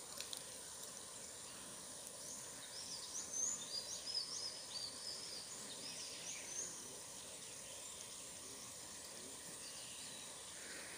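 Faint open-air ambience: a bird chirps a quick run of short, high notes from a few seconds in until about halfway through, over a steady faint high whine.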